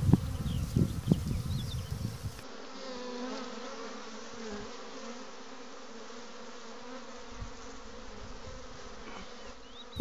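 A flying insect buzzing with a steady hum that wavers up and down in pitch, starting after about two seconds of low rumbling noise with a few short bird chirps.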